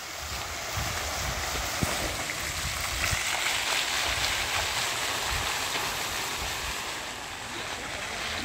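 Illuminated fountain jets splashing down into the pool, a steady rush of falling water, with a few low thumps underneath.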